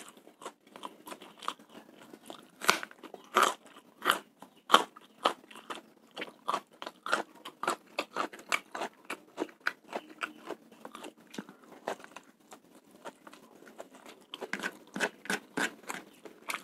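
Close-up mouth sounds of a person chewing spicy fried rice (nasi goreng) with bird's eye chilies: irregular wet crunches and smacks, about two or three a second.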